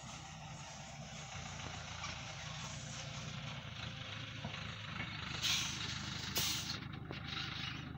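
Truck engine running with a steady low rumble, and two short loud hisses about five and a half and six and a half seconds in.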